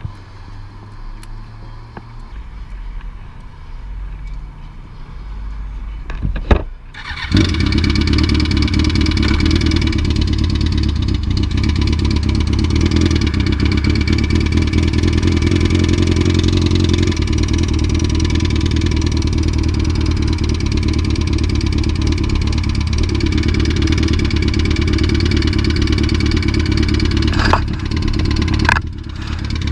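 A motorcycle engine catches after a sharp click about six and a half seconds in. It then runs loud and steady at one speed, without revving, with a brief dip near the end; before it starts there is only a quieter low hum.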